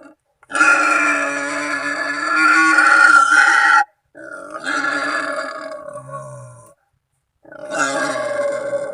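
Wild boar squealing in three long, harsh calls separated by short pauses, the last still going at the end. It is a boar calling to companions or rivals, the kind of call hunters play to lure boar.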